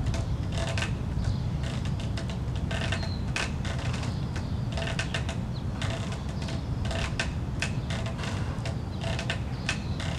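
TRX suspension-trainer straps and anchor creaking and squeaking under load with each rep, in short bursts every second or two, over a steady low rumble.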